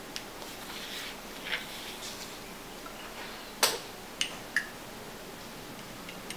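Soft rustling of hand on paper, then three sharp clicks within about a second, the first loudest and the last with a brief glassy ring: a dip pen's metal nib and holder knocking against a small glass jar of white gouache as the pen is dipped for ink.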